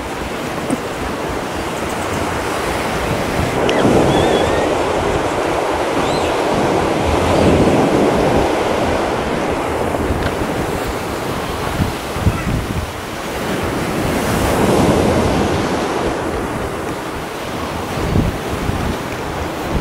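Ocean surf breaking and washing, swelling and fading every few seconds, with wind buffeting the microphone.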